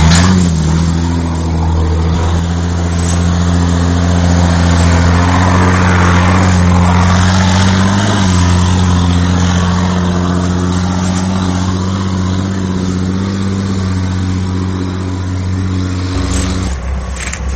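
Jeep Cherokee XJ's engine running at steady, fairly high revs under load as it drives through mud and leaves off-road, with tyre and mud noise over it. The engine sound cuts off near the end.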